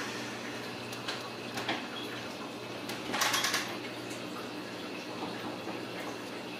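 Ragdoll kittens playing on a hard floor: scattered light clicks of paws and claws, with a short scratchy scrabble about three seconds in, over a steady low household hum.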